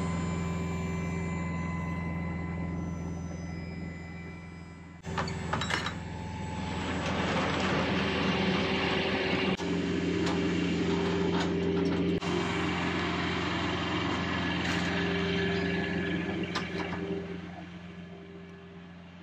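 A tractor-trailer's diesel engine idling steadily. From about six seconds in, louder rolling and rattling noise joins it and fades away near the end.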